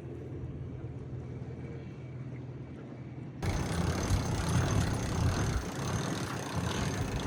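Boat engine running steadily at low revs with a low drone. About three seconds in, it cuts abruptly to louder wind buffeting the microphone, with a rushing hiss.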